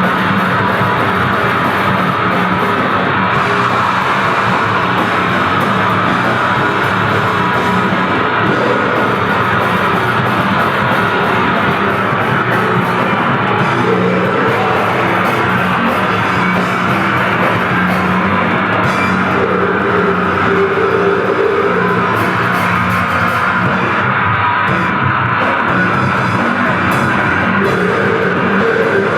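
Grindcore band playing: heavily distorted electric guitar and bass over a drum kit, a dense, loud and unbroken wall of sound.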